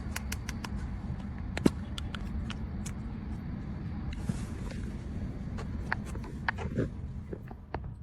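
Scattered light clicks and taps from hands working on a car door's hardware, with a short hiss about four seconds in, over a low steady rumble.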